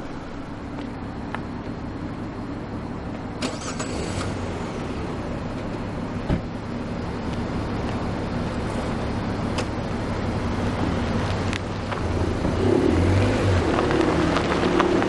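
Car engine running and growing louder as a car pulls away, with a couple of sharp clicks along the way.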